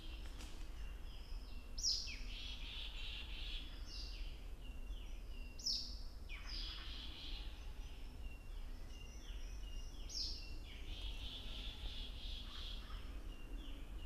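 A songbird singing the same phrase about every four seconds: a sharp downward-slurred note followed by a quick warble, with short chirps in between, over a steady low rumble.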